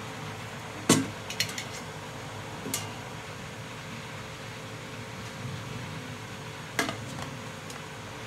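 Oil heating in an aluminium pot on a gas stove burner: a steady low hiss, broken by a few sharp clicks, the loudest about a second in and another near seven seconds.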